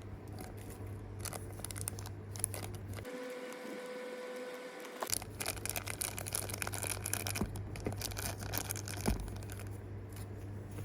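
Small plastic bags crinkling and rustling as they are handled, with light clicks and taps, busiest in the second half. A faint steady tone holds for about two seconds about a third of the way in.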